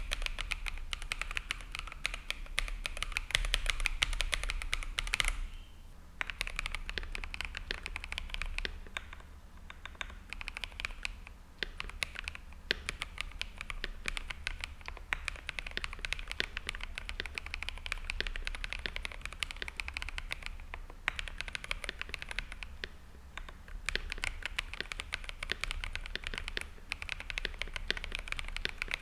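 Fast, continuous typing on an Akko PC75b mechanical keyboard with Akko CS Jelly Black linear switches and stabilizers lubed with Krytox 205g0. It is a dense stream of keystrokes with brief pauses about five and a half, nine and twelve seconds in.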